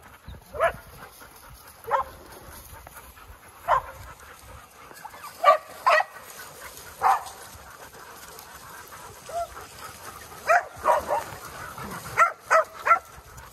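Dog barking in single short barks, about a dozen spaced a second or two apart and coming quicker near the end.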